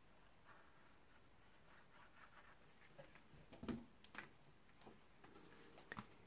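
Near silence with a few faint taps and rustles of card stock being handled on a craft mat, the clearest about three and a half seconds in.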